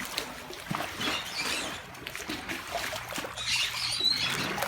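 Swimming-pool water sloshing and slapping against the pool walls, set in motion by earthquake shaking.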